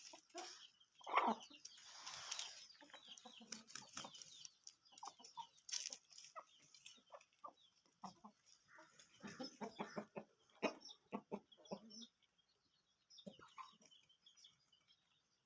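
Aseel chickens clucking in short, faint calls that come thickest in the middle and thin out near the end.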